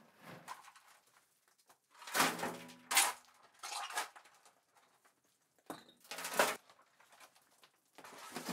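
A steel shovel scraping into loose stone and plaster rubble and tipping it into a metal wheelbarrow: five separate scrapes and rattling crashes a second or two apart.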